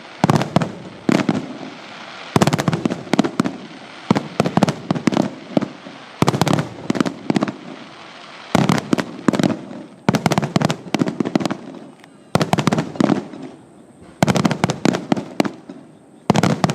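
Fireworks display: rapid volleys of aerial shell bursts and crackling bangs, coming in clusters every one to two seconds.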